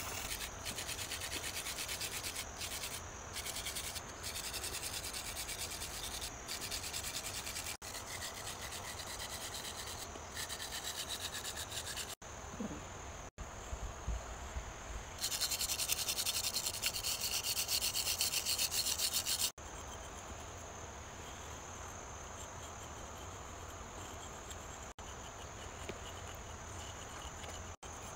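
A drawing stick rubbed and scraped by hand across a concrete road surface in quick repeated strokes, heard in short clips broken by sudden cuts, with a louder, hissier stretch of rubbing past the middle. Insects buzz steadily in the background.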